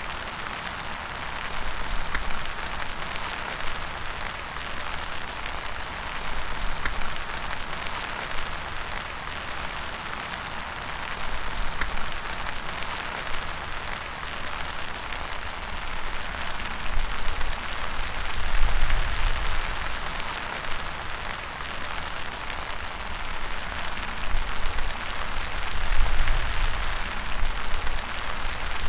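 Steady patter of raindrops on leaves and the ground, a dense hiss speckled with fine ticks, with occasional low rumbles.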